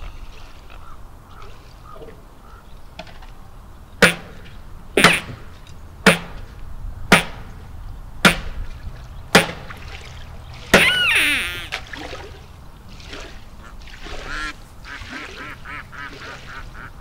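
Six sharp shotgun shots about a second apart, then ducks quacking: one loud call, followed by a quicker run of fainter quacks.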